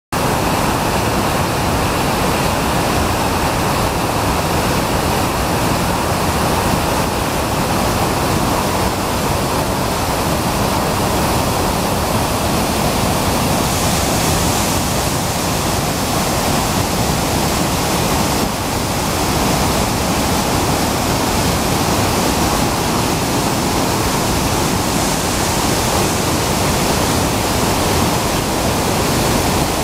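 Waterfall in heavy flow: a loud, steady rush of white water pouring and crashing onto rocks.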